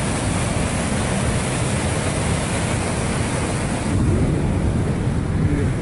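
A river rushing steadily through a narrow rock canyon, with wind buffeting the phone's microphone.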